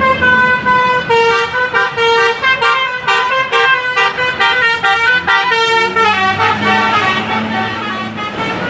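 Indonesian bus 'telolet' musical air horn playing a quick melody of changing notes. About six seconds in the notes thin out and a low engine drone comes up.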